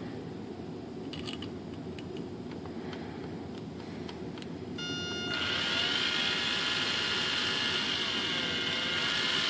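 Small electric drill starting about five seconds in and running steadily with a high whine while drilling a wire hole through the fibreglass fuselage of a model glider. Before it starts there are only faint handling clicks.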